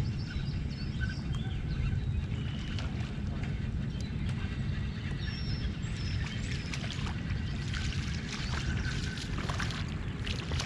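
Outdoor sound from a fishing kayak on the water: a steady low rumble with scattered small clicks and a few brief high chirps.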